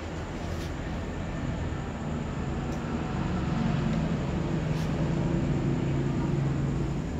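A steady, low mechanical drone under a noisy hiss, growing louder about three seconds in.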